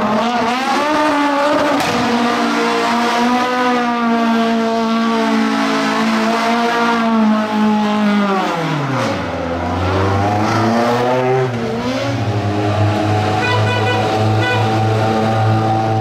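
Fiat 131 Abarth rally car's engine held at high revs with tyre squeal as the car spins its wheels in thick tyre smoke. About nine seconds in the revs fall away sharply. The engine is blipped a few times, then runs steadily at low revs.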